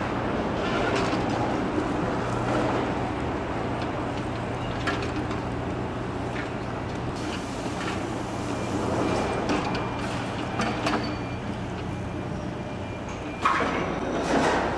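Construction site noise: machinery running with a steady drone, with scattered metal clanks and knocks, the loudest one near the end.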